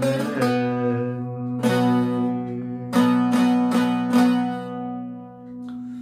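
Short-neck bağlama (kısa sap saz) played with a plectrum through the closing phrase of the tune. A few sharp strokes sound over a steady low drone of the open strings, and the last notes are left to ring out and fade.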